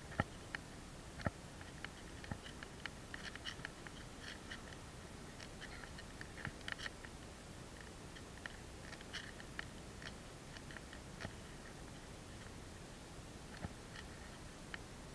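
Faint scattered clicks and scratchy rustling of close handling noise, from a spinning rod, reel and clothing moving against the body-worn microphone, with the clicks thickest in the middle of the stretch.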